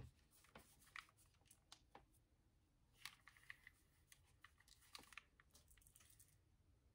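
Near silence with faint, scattered clicks and crackles of hair being wound around and handled with a curling iron.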